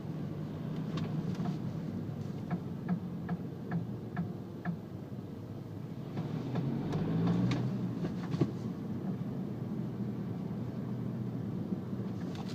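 Car with a steady low rumble, and a knock from the front end heard over it: a run of sharp knocks, two or three a second, then a louder cluster with one hard knock past the middle.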